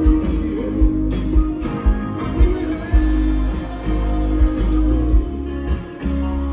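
Live rock band playing a song in concert: electric guitar and held chords over a steady drum beat, with a man's lead vocal singing at times.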